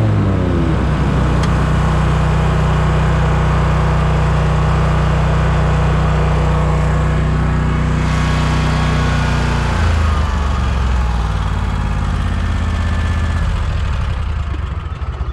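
Scag Tiger Cat zero-turn mower's Kawasaki engine running under load as the 61-inch deck cuts grass. The engine pitch drops just after the start, shifts again about ten seconds in, and the sound begins to die down near the end.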